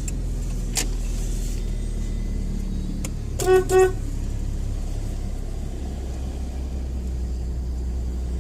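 Car horn honked twice, two short beeps in quick succession, over the steady low hum of the idling car: a call for someone to come out.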